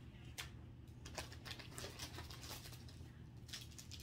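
Faint rustling and a few soft crinkles of plastic packaging being handled and pulled from a plastic shipping bag, over a low steady hum.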